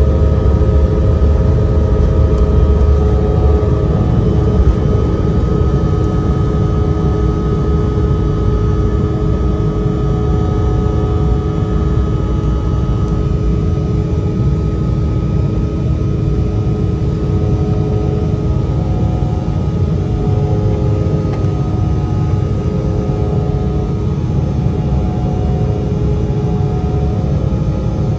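Embraer E175's twin GE CF34 turbofans at full takeoff power, heard inside the cabin beside the wing: a steady roar with several steady whining fan tones. A heavy low rumble from the wheels on the runway fades about four seconds in as the jet lifts off and climbs.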